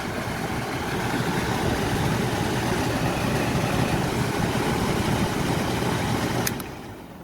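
RV air conditioning unit running steadily with its compressor and fan on, then switched off with a click near the end, after which the running noise dies away.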